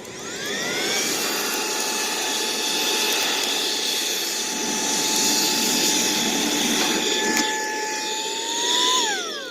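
Saker cordless handheld vacuum running as a blower on its low setting. The motor spins up with a rising whine at the start and runs steadily with a high whine over rushing air. Just before the end its pitch briefly rises, then it winds down with a falling whine as it is switched off.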